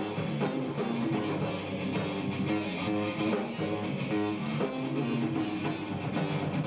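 A rock band playing a song: guitars over bass and a drum kit, steady and continuous.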